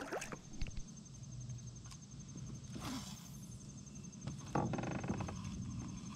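Ultralight spinning reel being cranked to retrieve a freshly cast lure, faint over a low steady hum.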